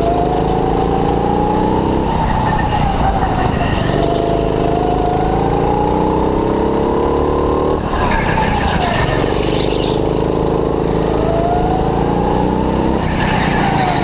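Go-kart engine heard from the driver's seat, its pitch climbing along each straight and falling away sharply as the kart lifts off for the corners, three times over, with a hiss in the turns.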